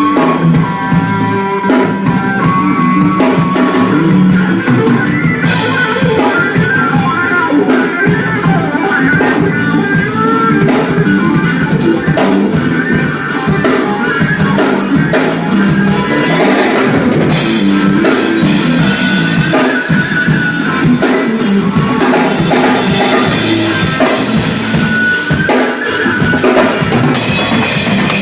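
Electric guitar played through the drive of a Tech 21 Fly Rig 5 multi-effects pedal, with a drum kit. The cymbals come in about five seconds in.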